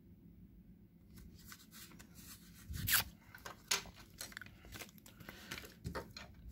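Thin protective plastic film being peeled off an action camera's screen, with crinkling and small handling clicks. The loudest crackles come about three seconds in and again shortly after.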